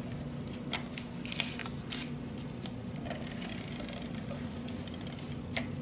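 Fast Fuse adhesive applicator being run along the edge of cardstock, making a faint rubbing hiss with a few light clicks, over a steady low hum.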